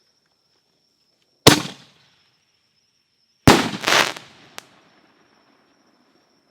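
Aerial firework canister shell reports: one sharp boom about a second and a half in, then a second boom two seconds later, followed by a short run of crackling pops that die away.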